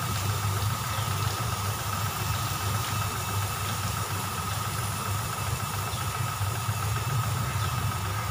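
An engine idling steadily, a low pulsing hum with a constant thin whine above it and an even hiss.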